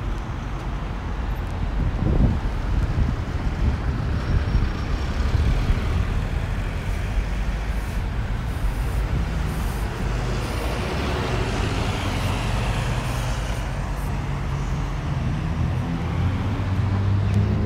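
Road traffic: a steady low engine rumble from vehicles on the street, with one vehicle swelling past about halfway through and a heavier engine hum growing near the end.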